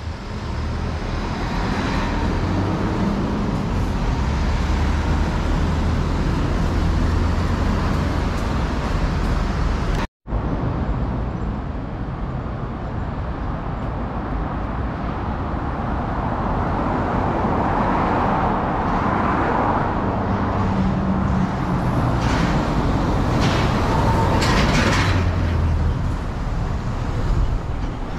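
Road traffic on a wide city street: a steady mix of engine hum and tyre noise, with one vehicle swelling past in the second half. The sound cuts out for an instant about ten seconds in.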